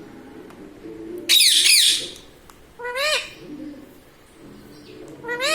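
Indian ringneck parrot giving three rising squawking calls: a loud, longer one about a second in, a shorter one about three seconds in, and another at the very end.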